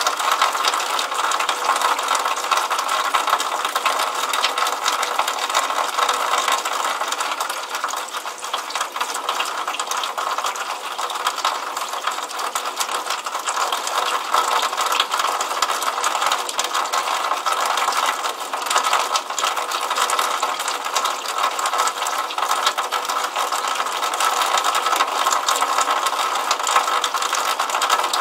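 Rainwater running out of a downspout and splashing into a puddle on paving: a steady, dense run of fast fine ticks and splashes over a hiss, with no low end.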